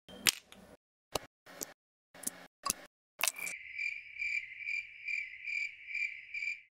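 A handful of sharp, separate clicks, then a cricket chirping steadily, about two or three chirps a second. The chirping is the comic 'crickets' silence gag and cuts off abruptly.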